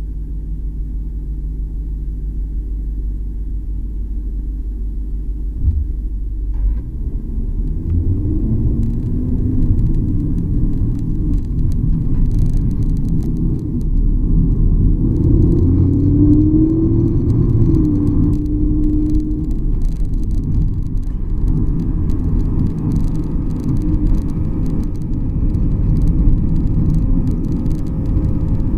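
Rumble of a 2018 BMW 750i M Sport (G11) heard from inside its trunk: a steady low hum for the first several seconds, then heavier rumble as the car is driven, with scattered light clicks and creaks from the rear suspension, the abnormal noise the owner is trying to record.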